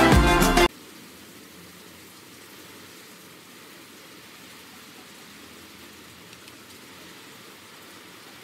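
Background music stops abruptly less than a second in, leaving a steady, even hiss of background noise.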